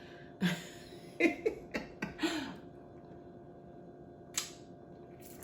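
Mouth eating sounds: wet lip-smacking and chewing in a series of short, separate smacks with quiet gaps between them.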